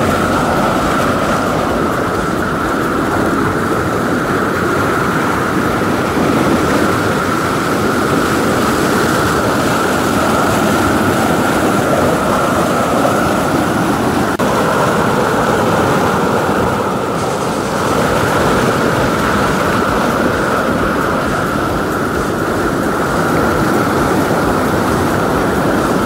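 Mountain stream water rushing over boulders into a pool: a loud, steady rush of churning white water close to the microphone.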